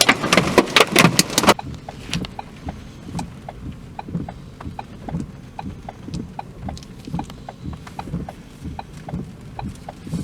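Heavy rain or hail pelting the car, cutting off abruptly about a second and a half in. Then a car's turn-signal or hazard-light relay ticks evenly, about three ticks a second, over a low steady hum.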